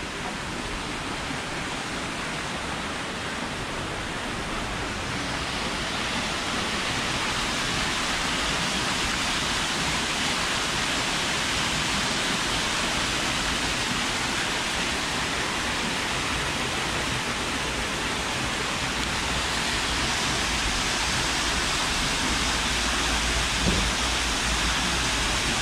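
Steady hiss of rain falling, a little louder from about five seconds in.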